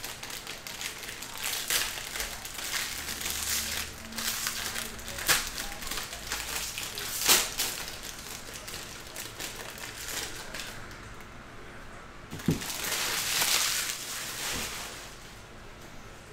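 Foil trading-card pack wrappers being torn open and crumpled by hand: crinkling with sharp crackles, and a longer rustle about thirteen seconds in.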